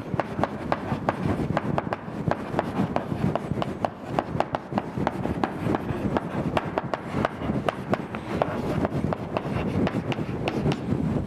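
Chalk writing on a blackboard: a quick, irregular run of sharp chalk taps and scrapes as letters are written out.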